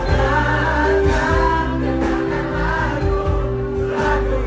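Live band music: voices singing over electric bass and guitar, with heavy sustained bass notes.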